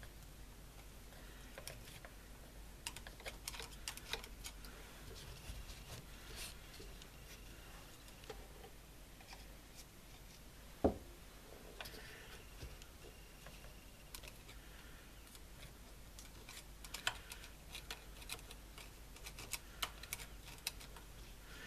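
Faint, scattered small clicks and scrapes as grease is poked into the dry bearing of an electric lawn mower motor, against its plastic housing. There is one louder knock about eleven seconds in.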